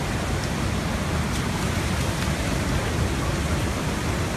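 Swollen Tanaro river in flood: a steady, unbroken rush of fast-moving floodwater pouring through the street.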